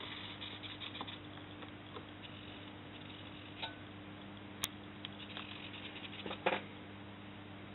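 Steady low electrical hum with scattered light clicks and ticks, a sharp click about four and a half seconds in, and a short clatter of clicks about six and a half seconds in.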